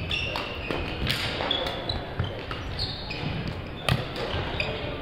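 Badminton rally: sharp racket hits on the shuttlecock, the strongest just before the end, among shoes squeaking on the court floor and the thud of footfalls.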